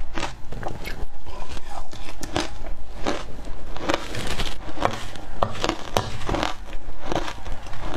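Matcha-coated crushed ice crunched between the teeth in a dense run of crackling bites, with a metal spoon scraping and stirring through the ice in a stainless steel bowl.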